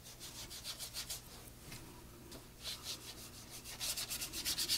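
Watercolour brush scrubbing back and forth in the paint palette, mixing paint. It makes a quick, rhythmic, scratchy rubbing that grows louder near the end.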